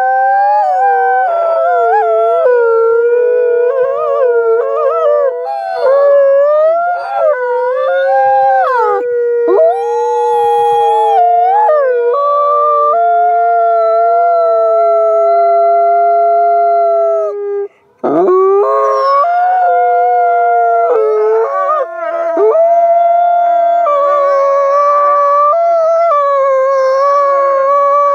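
Two wolves howling together, their long howls overlapping at different pitches, gliding up and down and holding steady notes. About two-thirds of the way through the howling briefly stops, then a new howl sweeps up from low.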